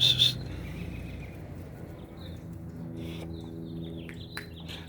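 Birds calling: two loud, high-pitched calls at the start, then quicker, fainter chirps near the end, over a steady low hum.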